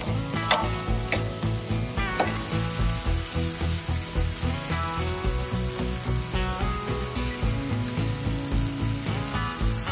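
Cheeseburger patties and melted cheese sizzling on a steel Le Griddle flat-top, with a few sharp scrapes of a metal spatula on the plate in the first couple of seconds. Background music with a steady beat plays under it.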